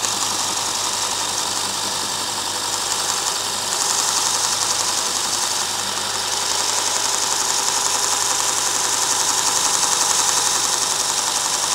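Robert Sorby ProEdge belt sharpener running: a steady motor hum with the hiss of the abrasive belt, while the belt's tracking is adjusted on the running machine. It gets a little louder about four seconds in.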